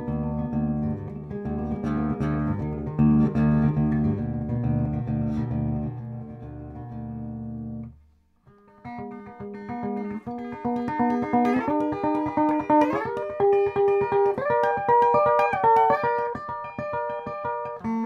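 Electric guitar with a P90 pickup played clean through a Peavey Bandit amplifier: low notes and chords for about eight seconds, a short pause, then quicker single-note lines higher up the neck.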